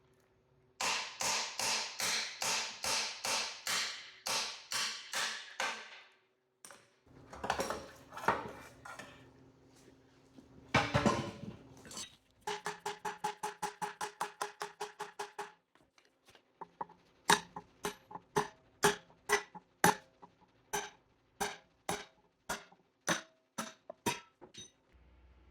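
Runs of quick, repeated hammer strikes on metal, some blows ringing, broken by short pauses.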